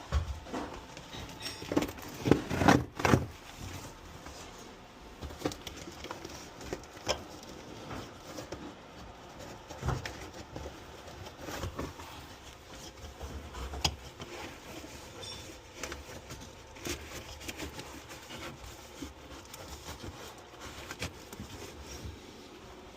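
Scattered knocks, taps and clicks from work on a ventilation unit and its mounting hardware, loudest in a cluster of thumps about two to three seconds in.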